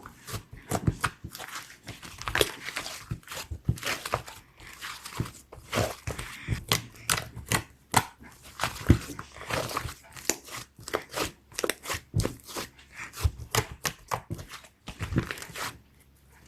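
Slime being squeezed and stretched by hand, making a rapid, irregular run of sharp clicks and pops.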